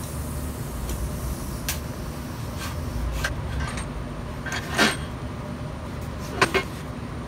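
Steel clanks and knocks as a heavy square steel tube post with welded plate flanges is handled on a steel welding table. A few light clicks lead up to a louder scraping clank about five seconds in, then a sharp double knock about a second and a half later, over a steady low shop hum.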